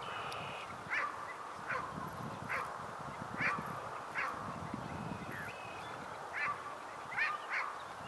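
A series of about nine short, high animal calls, roughly one a second at uneven spacing, over a steady outdoor hiss.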